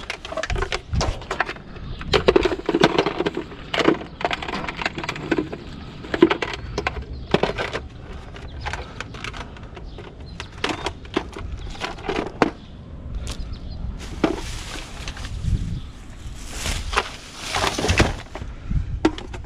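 Irregular clicks, knocks and clatter of scrap items being handled and sorted by hand.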